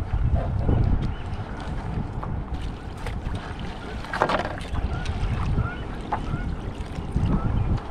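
Wind buffeting the microphone, with a splash of water about four seconds in as a hooked walleye is scooped into a landing net.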